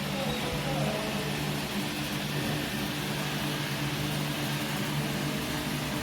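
A steady mechanical drone: an even hiss over a low, constant hum, with no clicks or key strokes.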